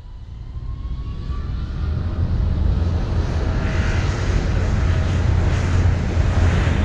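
Airplane engine drone swelling steadily louder, as of a plane approaching, with a deep rumble underneath. A faint whine rises in pitch over the first second or two.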